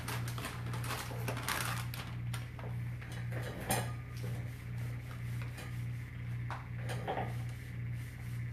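Rustling of a soft plastic wet-wipes pack and wipes rubbing over a tile floor to clean up spilled epoxy, with a few light knocks, the sharpest about halfway through and another near the end. A steady low hum runs underneath.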